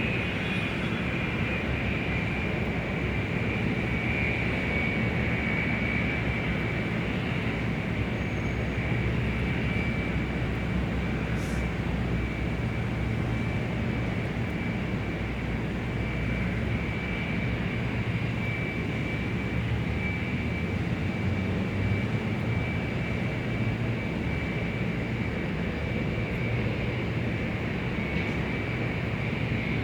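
Large airport exterior ambience: a steady jet-engine drone, a constant high whine over a low hum, holding level with no flyover rise or fall.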